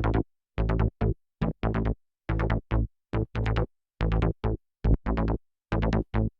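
Electronic music intro, AI-generated: choppy stop-start bursts of rapid staccato synth and drum-machine hits, cut by short dead silences, a stuttering rhythm like machine-gun fire.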